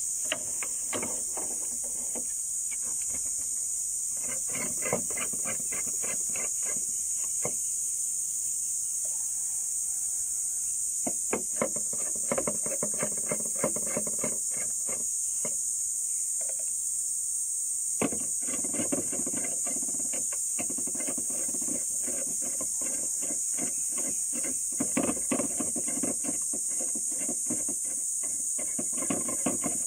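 Steady high-pitched insect buzz, with irregular clicks and rattles of a plastic scope-mount adapter being handled and adjusted, busiest in the middle and latter part.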